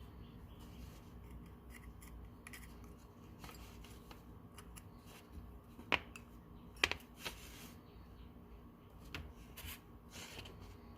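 Small metal clicks and light scraping as the small internal parts of a 1939 Plomb 5449 half-inch-drive ratchet are worked out by hand, with two sharper clicks about six and seven seconds in.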